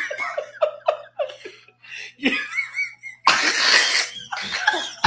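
People laughing and giggling in short, wavering bursts, with a sudden loud breathy burst about three seconds in.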